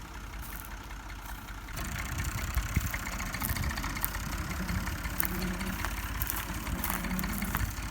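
A motor engine running steadily at idle, getting louder about two seconds in, with scattered light ticks over it.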